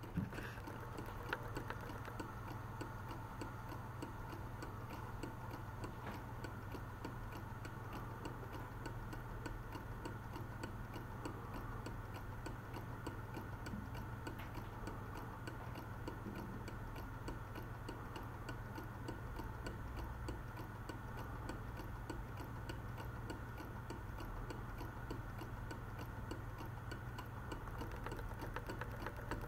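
Clockwork movement of a 1930s Oswald carved owl clock ticking steadily and quickly, over a low steady hum.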